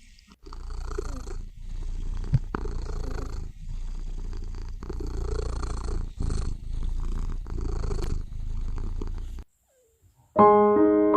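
Domestic cat purring close to the microphone, in pulses that swell and break with each breath. The purring stops about nine and a half seconds in, and after a second's silence piano music begins near the end.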